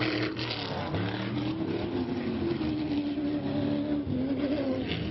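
Off-road racing buggy's engine running hard, its note rising and dipping as it accelerates across the dirt toward the listener.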